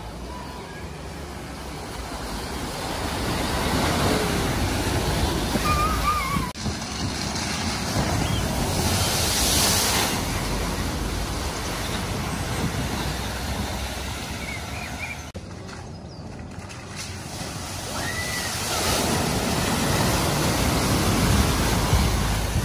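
Cars wading through a flooded ford: water surging and splashing around the wheels and bodywork, with the engines running underneath. Three clips are cut together, changing about six and fifteen seconds in.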